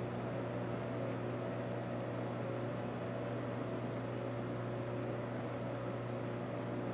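Steady low hum over an even hiss, unchanging throughout, like a fan or appliance running in the room.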